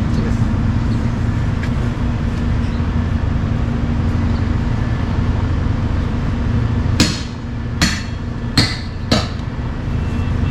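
Four sharp hammer blows, about two-thirds of a second apart, in the last third, over a steady low hum.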